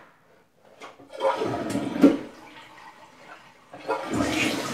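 Toilet fitted with a Smarter Flush dual-flush kit being flushed: a faint click about a second in, then water rushing from the tank into the bowl. Near the end a steady rush of water begins as the tank refills.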